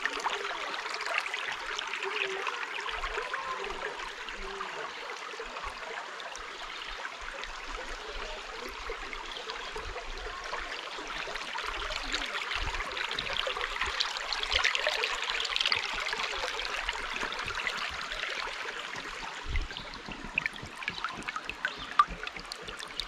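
Shallow creek running over rocks and stones: a steady babble of flowing water that swells a little past the middle, with a couple of sharp clicks near the end.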